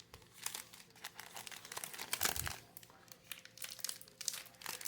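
Trading-card pack wrapper crinkling in the hands as it is worked open, in quick irregular crackles that are busiest around the middle.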